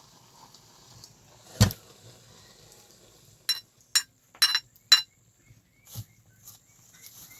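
A dull thud, then a couple of seconds later four quick, ringing metallic clinks of kitchen utensils and dishes being handled.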